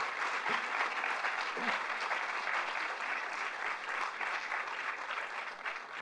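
Audience applauding, steady dense clapping from many hands.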